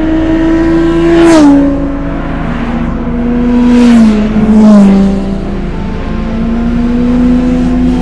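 Suzuki Bandit 650S inline-four engine running on the move, a steady note. Its pitch drops sharply about a second and a half in and again around four to five seconds in, each time with a brief rush of noise, then climbs slowly.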